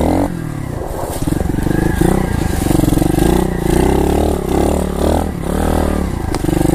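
Pit bike's small single-cylinder engine revving up and down as it is ridden over a dirt trail, the pitch rising and falling with the throttle.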